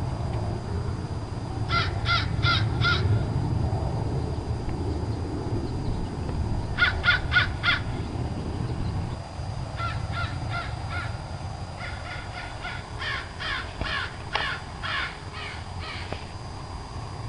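Crows cawing in quick runs of about four harsh caws at a time, with a longer, denser run of overlapping caws in the second half. A steady low background rumble lies underneath.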